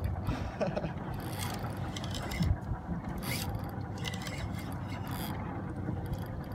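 Spinning reel being cranked under load against a hooked jurel (yellowtail), its gears whirring in repeated pulses with the turns of the handle, over a steady low rumble.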